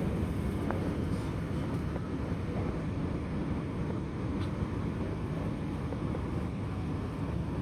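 Shanghai Metro Line 14 train running between stations, heard from inside the carriage: a steady low rumble of wheels and traction gear with a few faint clicks.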